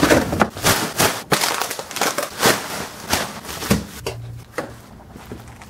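A plastic trash bag rustling and crinkling in quick, irregular crackles, easing off after about four seconds.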